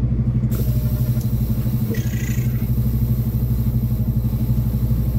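Semi-truck engine running with a steady low drone, joined by a broad hiss about half a second in.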